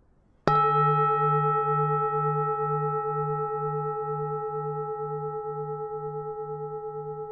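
Vietnamese temple bell struck once about half a second in, then ringing on with several overlapping tones. The ring has a steady wavering pulse, about two beats a second, and fades slowly.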